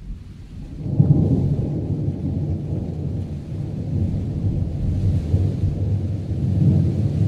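Thunderstorm: low rolling thunder that swells suddenly about a second in and keeps rumbling, over a faint hiss of rain.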